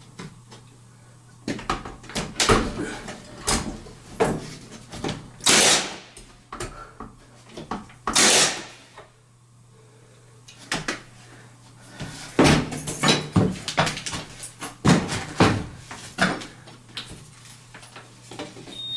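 Wooden window trim being handled and fitted against a window frame: a run of irregular knocks, taps and clatter, with two longer scraping bursts of about half a second.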